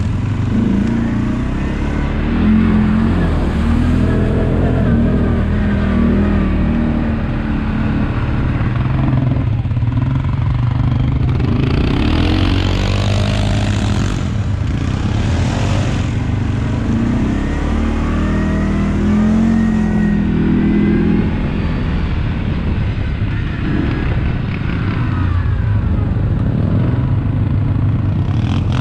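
ATV engine running under way, its note rising and falling several times as the throttle opens and closes. About halfway through comes a few seconds of hissing noise.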